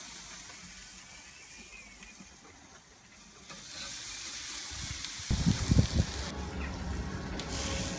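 Bacon-wrapped burger patties sizzling on a charcoal grill, a steady hiss that grows louder partway through. A low rumble joins in over the last few seconds.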